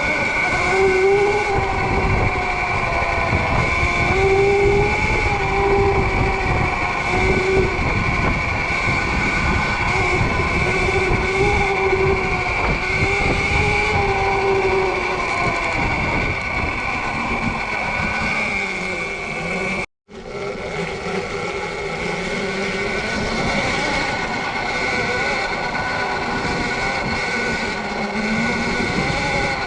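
Sur-Ron electric dirt bike's motor whining, its pitch rising and falling with speed, over a loud low rumble of wind and riding noise. The sound drops out for a moment about two-thirds of the way through, then carries on.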